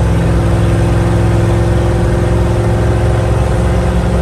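Old Chevrolet truck running at highway speed, about 70 mph, heard from inside the cab. A steady engine drone mixes with road and wind noise.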